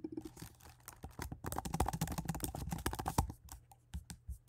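Rapid typing on a computer keyboard, a quick run of keystrokes, followed by a few separate clicks near the end.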